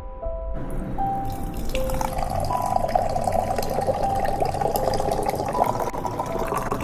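Water pouring in a thin stream into a glass tumbler, splashing as the glass fills; the pour starts about half a second in. Background music with sustained notes plays throughout.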